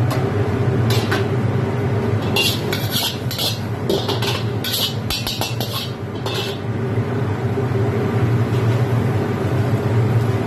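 Gas wok burner running with a steady low rumble under a steel wok. From about two seconds in to past six seconds, a steel ladle scrapes and clinks against the wok in a run of short strokes.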